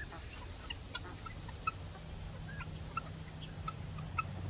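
Baby turkeys (poults) peeping: short, high chirps scattered a few times a second, some sliding slightly upward.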